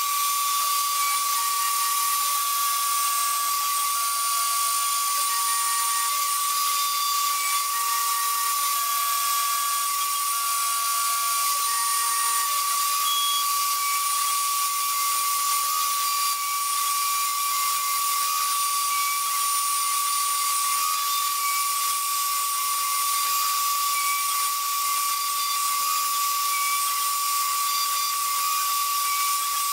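CNC router spindle milling a 2 mm fibreglass (GFK) sheet with a 2 mm diamond-toothed cutter: a steady high whine over a dense hiss of cutting and dust extraction. For the first dozen seconds, short stepped tones from the stepper motors come and go as the axes move.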